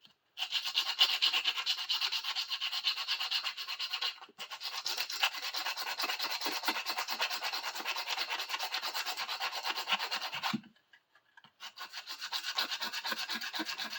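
Sandpaper rubbed by hand over a bar clamp's handle in quick back-and-forth strokes, several a second, to smooth off leftover tape glue. There is a brief pause about four seconds in and a longer one of about a second near the end.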